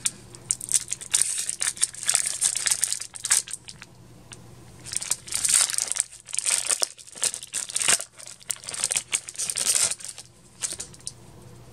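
Crinkling and tearing of a Yu-Gi-Oh! Fusion Enforcers booster pack's foil wrapper as it is torn open and handled, in repeated bursts that die away near the end.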